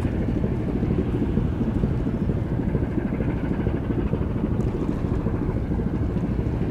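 Wind buffeting the camera microphone: a loud, steady low rumble with ragged swells.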